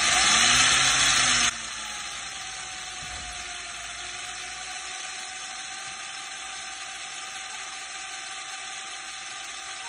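Black and Decker drill with a quarter-inch masonry bit grinding slowly into the bottom of a ceramic flower pot under light pressure. It is loud with a harsh grinding hiss for about the first second and a half, then suddenly drops to a quieter, steady hiss and motor whine as it keeps turning.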